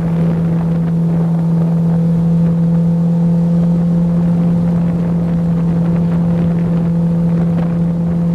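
A boat's outboard motor running at a steady cruising speed, a constant drone that does not change in pitch, with wind noise on the microphone.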